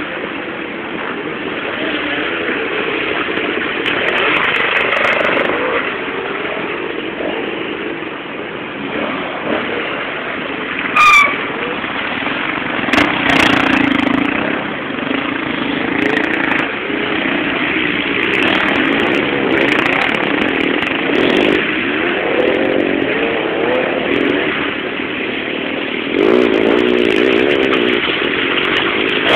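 Enduro dirt-bike engines revving as riders ride along a muddy woodland track, the pitch rising and falling with the throttle. A brief sharp sound about eleven seconds in is the loudest moment.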